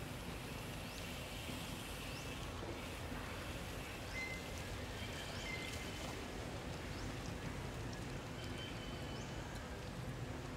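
Steady outdoor background noise with scattered short, high bird chirps through it.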